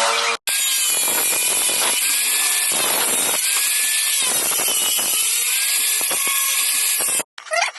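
A saw cutting through PVC pipe in one steady, continuous run. It starts abruptly just after the beginning and cuts off suddenly near the end.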